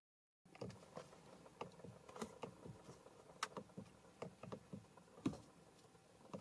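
Irregular light clicks of Mercedes-Benz steering-wheel buttons being pressed to scroll through the instrument-cluster menu, over faint background noise. The clicks start about half a second in.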